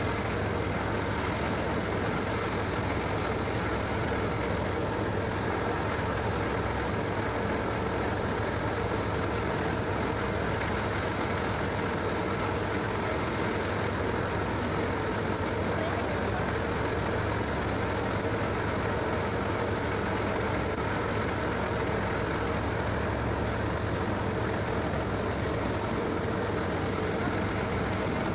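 Tractor-driven drum paddy thresher running steadily as rice stalks are fed through it, the engine and threshing drum making one continuous, even mechanical drone.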